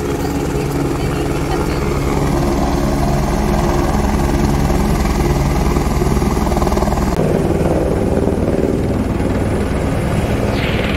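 Helicopter hovering close overhead on a long line, its rotor giving a steady rapid beat.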